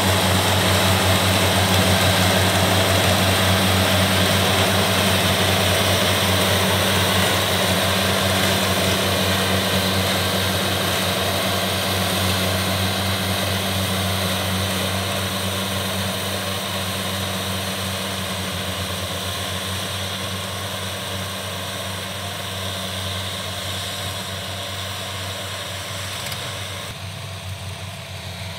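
Kubota rice combine harvesters running while harvesting: a steady diesel drone with the whir of the cutting and threshing gear, slowly fading as the machines move away.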